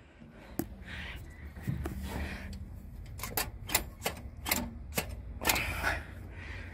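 Irregular metallic clicks and taps of hands working at the carburetor and its throttle linkage, about a dozen scattered sharp ticks.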